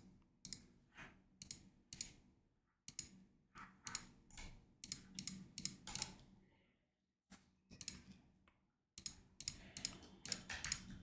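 Computer mouse clicking in quick, irregular runs of a few clicks, with brief pauses between runs.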